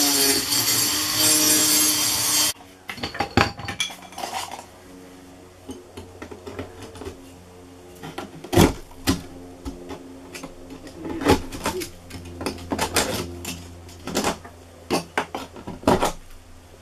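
Sheet-metal vent sleeve being worked into a wall opening: scattered metal clinks, taps and knocks. A loud power tool runs through the first two and a half seconds and stops abruptly.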